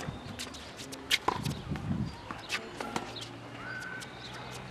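Tennis rally on a hard court: sharp knocks of the ball off the strings and bouncing on the court, a hit every second or so, the loudest a little after a second in.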